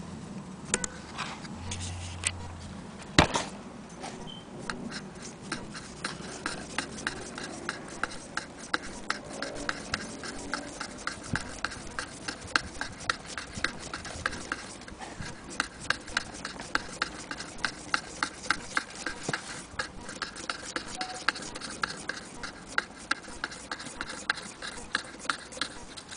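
Willcox & Gibbs chain-stitch sewing machine stitching through denim, its mechanism clicking in a steady rhythm of about three clicks a second. A single sharp knock about three seconds in, before the stitching starts.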